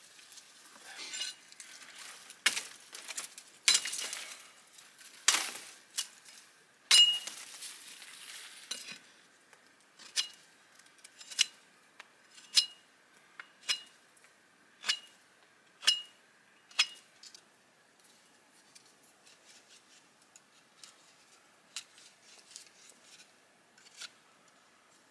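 Dry brush branches rustling and cracking as they are handled, then a run of sharp knife strokes on a wooden stick, about one a second, each with a light metallic ring from the blade, fading into quieter scraping as the stick is whittled.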